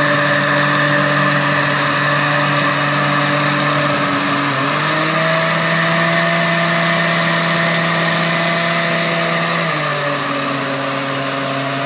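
Countertop blender motor running steadily as it blends a full jar of Irish moss drink. Its pitch steps up a little about halfway through, then drops back near the end as a speed button is pressed.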